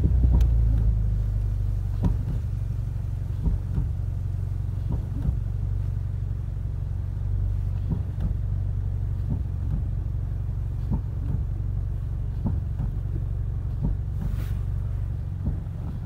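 A 2015-or-later Ford Mustang heard from inside the cabin, moving forward slowly: a steady low engine and road rumble, loudest in the first second, with faint short knocks every second or two.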